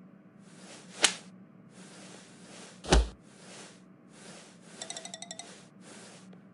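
Cartoon sound effects: short bursts of hiss, a sharp click about a second in, a knock with a low thud about three seconds in, and a quick rattle of bright pings about five seconds in, over a faint steady hum.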